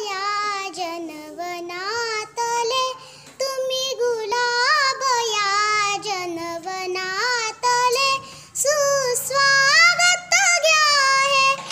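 A young girl singing a Marathi welcome song (swagat geet) solo, with no instruments, in flowing held and gliding notes broken by short breaths.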